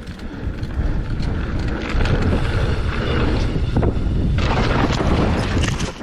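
Loud wind buffeting the microphone of a camera on a moving mountain bike, with low rumble and scattered short clicks and rattles. It gets louder about a second in.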